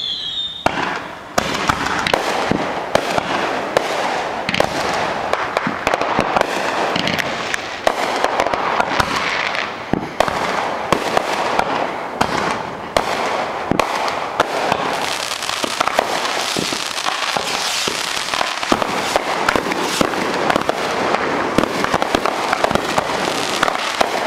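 Fireworks display going off in a dense barrage: continuous crackling packed with many sharp bangs. A wavering whistle ends within the first second, followed by a short lull before the barrage starts.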